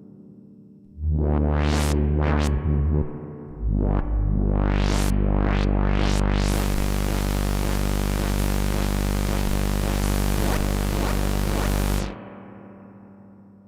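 Hardware synthesizer FX sample: a deep bass drone with fast rising noise sweeps, building into a dense wash of hiss over the bass. The sound stops abruptly about twelve seconds in and its tail fades away.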